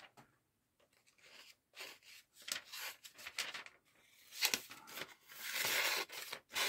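A dull, chipped throwing-knife blade dragged through a sheet of paper, tearing and scraping it rather than slicing cleanly. It starts as scattered short scrapes and becomes a longer run of scraping near the end.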